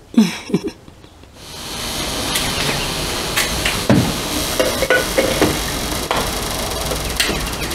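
A steady rushing background noise that comes up about a second and a half in, with scattered sharp clicks and knocks over it, like things being handled.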